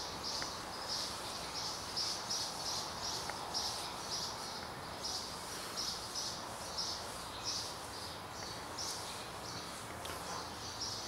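Rhythmic high-pitched chirping, about three chirps a second, over a steady hiss.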